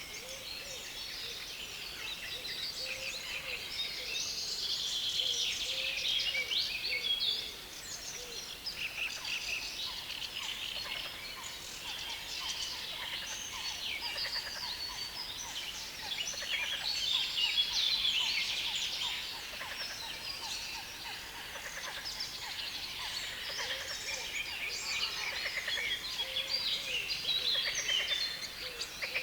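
Dense chorus of birds singing in a reed bed: many overlapping, fast chattering songs with no break, over a steady hiss of background noise. Deeper, lower calls come in for the first several seconds and again near the end.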